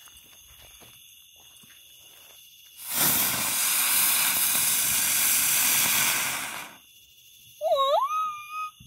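A ground fountain firework spraying sparks with a loud, even hiss for about four seconds, starting about three seconds in and cutting off. Near the end, a short high whoop that dips and then rises.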